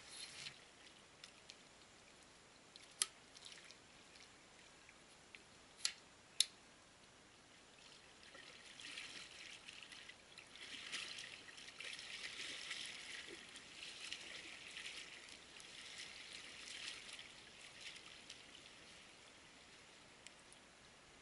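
Faint trickling, splashing lake water, building up about eight seconds in and easing off near the end. Three sharp knocks come about three and six seconds in, as the kayak is launched.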